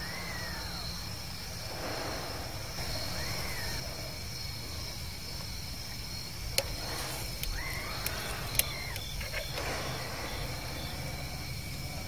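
Insects chirring steadily at a high pitch at night, with a few drawn-out calls that rise and fall in pitch and three sharp clicks near the middle.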